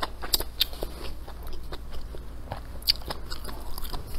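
Close-miked chewing of a mouthful of crisp stir-fried velvet antler mushrooms, with irregular wet crunches and clicks.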